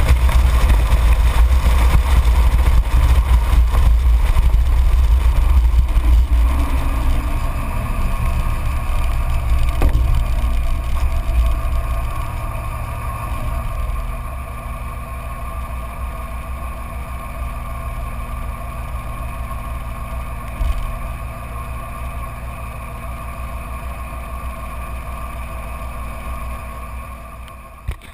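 Straight-piped Dodge Ram 2500's inline-six Cummins turbo-diesel heard from outside by the rear wheel: loud at road speed with tyre and wind noise, the engine note falling as the truck slows. It then settles to a steady, quieter idle, and the sound fades out at the very end.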